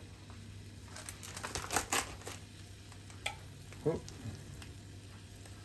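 Plastic food tray and its film crinkling and clicking as raw chicken is handled out of it with tongs, with a cluster of sharp crackles about two seconds in.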